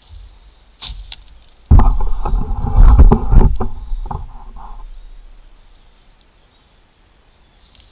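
Camera handling noise as the camera is picked up and re-angled: a click about a second in, then a loud rumbling, scraping and knocking against the microphone for about three seconds, fading out.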